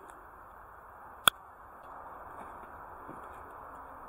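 A single sharp click or knock about a second in, over a steady low hiss.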